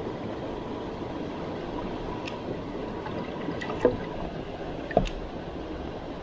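Mountain stream water rushing and gurgling steadily. Over it come a few short sharp knocks, the two loudest about four and five seconds in.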